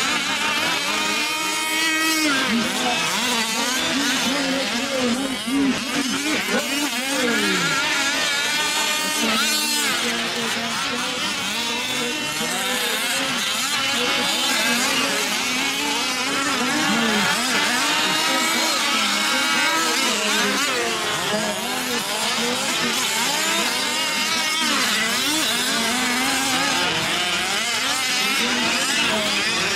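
A pack of 1/5-scale RC off-road race trucks' small gas two-stroke engines running together, each revving up and down as the trucks race around the track.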